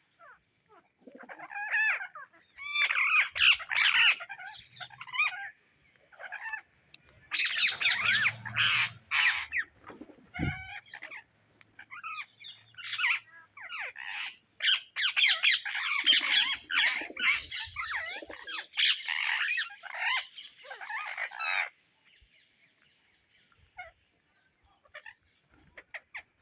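Indian ringneck parakeets chattering and squawking: rapid clusters of shrill, sliding calls in bursts, which die away about four seconds before the end. One dull low thump about ten seconds in.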